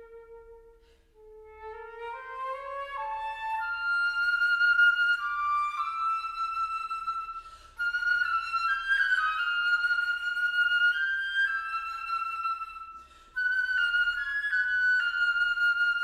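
Solo flute playing: a soft low note fades, then a line of notes climbs and swells over a few seconds into loud phrases high in the range, broken twice by short pauses before each new phrase enters sharply.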